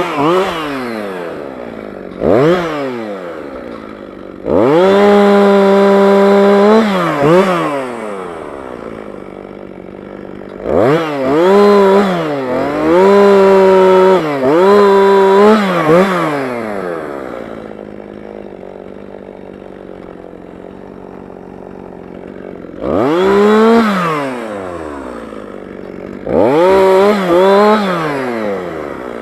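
Jonsered 2045 Turbo two-stroke chainsaw, revved several times to full throttle and held there for a few seconds each time, dropping back to idle between the bursts.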